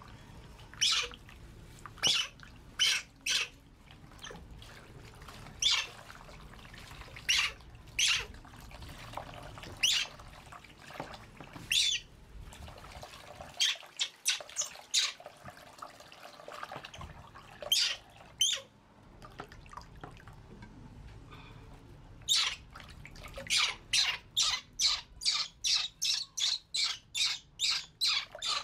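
Baby monkey squealing in short, high-pitched cries while it is held and washed in a basin of water. The cries come again and again, faster near the end at about two a second, with water splashing faintly underneath.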